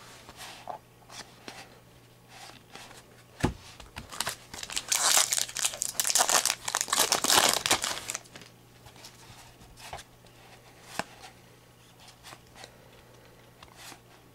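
A foil trading-card pack wrapper crinkling and tearing as it is ripped open by hand, loud and dense for about four seconds in the middle. A single knock comes just before it, and light clicks of cards being handled come before and after.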